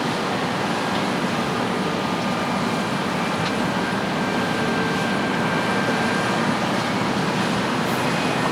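Heavy farm machinery running steadily, a continuous low mechanical noise with a faint steady whine over it.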